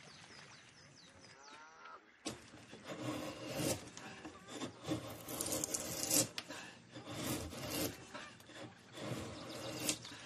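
A hand tool working wood: after a quiet start, repeated rasping, scraping strokes, about one and a half a second and uneven in strength.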